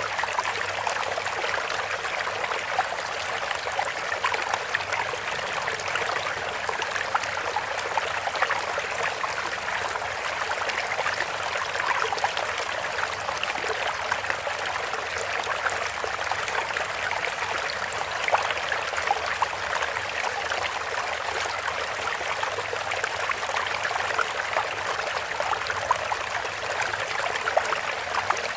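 Steady running water, an even rush dense with small splashes and trickles.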